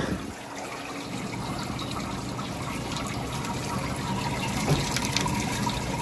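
A steady stream of hot water running from a stainless steel prep sink faucet and splashing, run to test the water heater's outlet temperature.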